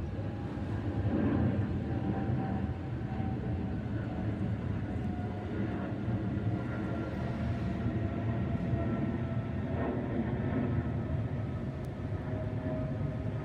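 Boeing 777-300ER's twin GE90 turbofans at climb power passing overhead: a steady low jet rumble with faint whining tones that slowly fall in pitch as the airliner moves away.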